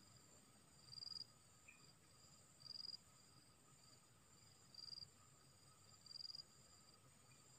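Faint insect chorus: a steady high-pitched drone, with a short, louder chirp repeating four times about every one and a half to two seconds.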